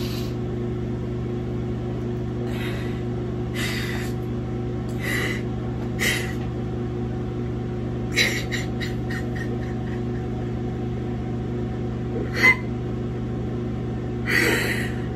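Bathroom exhaust fan humming steadily under a woman crying: sniffs and shaky, gasping breaths every second or so, with a quick run of catching breaths about eight seconds in and a sharper gasp near the end.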